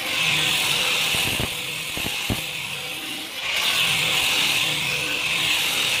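Electric angle grinder with a sanding disc running against a wooden plank, a steady high whine. About a second and a half in it eases off for around two seconds, with a couple of short knocks, then comes back full.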